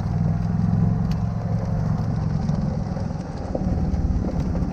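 Golf cart engine running steadily as the cart drives along a gravel track, with a low rumble underneath.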